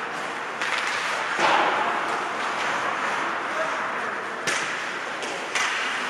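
Ice hockey play on the rink: a steady hiss of skates on the ice, with several sharp cracks of sticks and the puck, the loudest about one and a half seconds in.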